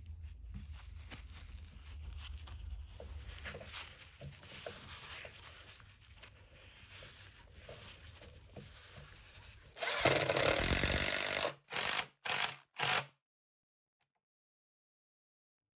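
Faint scraping and clicking of handling, then a power drill driving a screw through a caster's metal mounting plate into the wooden cabinet base. The drill runs for just over a second about ten seconds in, then gives three short bursts as the screw is seated, and stops.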